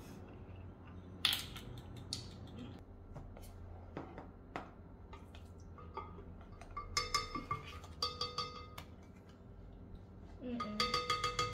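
Metal measuring spoons on a ring jingling and clinking as they are handled, in quick ringing runs about seven seconds in and again near the end. Before that there are scattered light knocks and clicks, with one sharp click a little over a second in.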